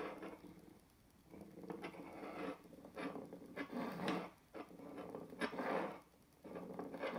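A steel engine valve from a GM 2.0 L LNF turbo cylinder head rolled back and forth by hand on a granite surface, a rolling rattle that swells and fades about five times. The roll is a check for a bent valve stem.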